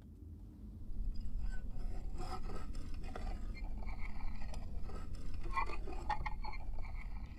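A rough, uneven scraping sound, starting about a second in and cutting off abruptly at the end.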